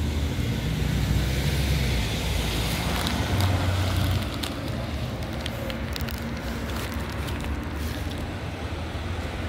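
Cars passing close by at low speed on a town street, a low engine and tyre rumble that eases off after about four seconds into steadier background traffic noise.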